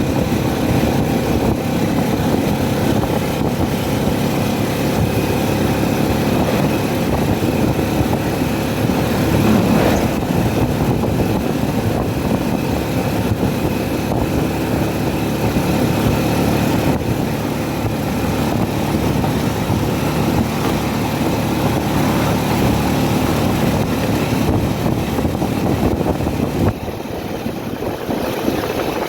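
Motor vehicle engine running steadily, with a dense even noise over it; the sound drops to a quieter level about two seconds before the end.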